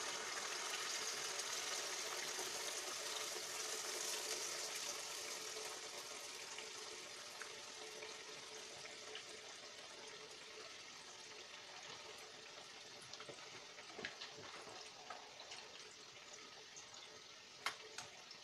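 Urad dal vada batter deep-frying in hot oil in an iron kadai: a loud sizzle as the batter goes in, easing over several seconds into a softer, steady sizzle, with a few sharp pops near the end.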